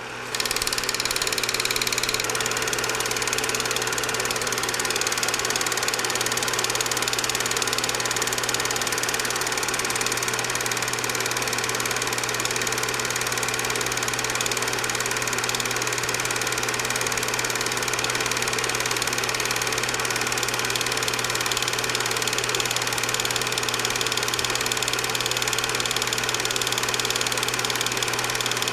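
Film projector running steadily: a continuous mechanical whir over a constant low hum, coming up to full level just after the start.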